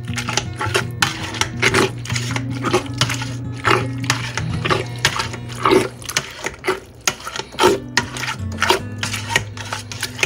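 Background music with held bass notes, over which a potato masher presses and scrapes through soft boiled pumpkin in a stainless steel pot, roughly one stroke a second.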